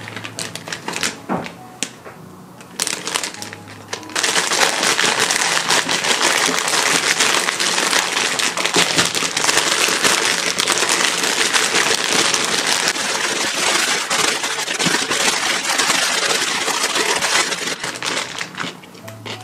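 Plastic zip-top bag crinkling loudly and continuously as cucumber slices are kneaded inside it to work in the seasoning, after a few lighter rustles and taps in the first seconds, easing off near the end. Soft background music underneath.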